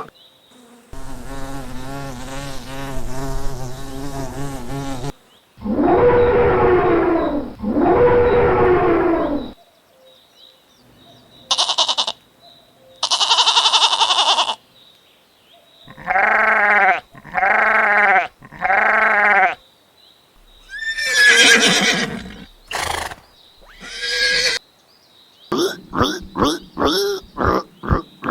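A string of different farm animal calls cut one after another: a long wavering call, two long loud calls, a few short high cries, three even calls in a row, and a quick run of short calls near the end.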